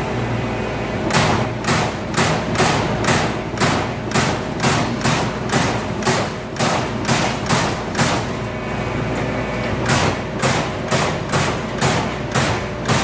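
Amada Aries 245 CNC turret punch press punching sheet metal: a steady run of sharp hits, about two and a half a second, starting about a second in over a steady machine hum, with a short pause about two-thirds through.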